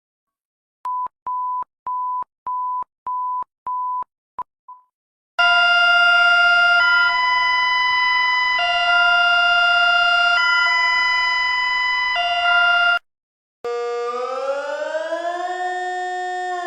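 Electronic emergency alert tones in sequence: about six short, evenly spaced high beeps, then a loud chord of several tones alternating between two pitches every second or two, which cuts off suddenly. A many-toned siren-like wail then starts, rising slowly and beginning to fall near the end.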